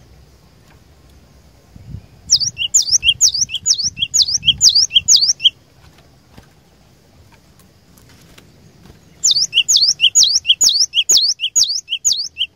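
Cinereous tit (glatik batu) singing: two runs of about seven repeated two-part whistled notes, roughly two a second, with a pause of a few seconds between the runs.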